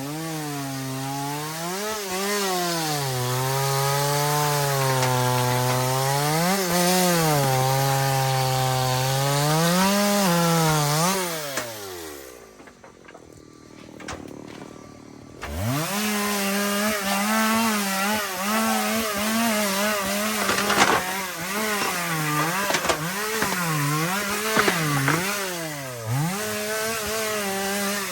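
Chainsaw running in a cut through a kapok tree trunk, its engine pitch repeatedly dipping under load and picking back up. About twelve seconds in the engine winds down and goes quiet for about three seconds, then revs back up and keeps cutting.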